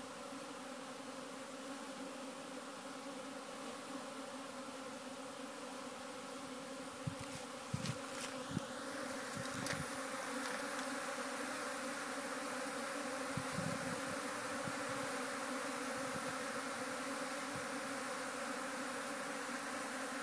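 A swarm of honeybees flying around their hive entrance, making a steady buzzing hum. A few soft knocks come about seven to ten seconds in, and after them the buzzing grows louder.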